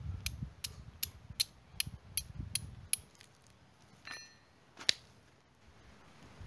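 A cotton hammock and its hangings creaking and clicking as a man settles into it and it sways. A run of about eight evenly spaced sharp clicks, about two and a half a second, fades out after about three seconds under a low rumble of movement. A short squeak follows, then one loud sharp click.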